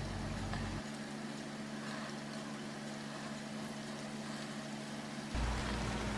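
Sliced bell peppers frying in plenty of oil in a pan, giving a steady sizzle. A low hum underneath changes abruptly twice.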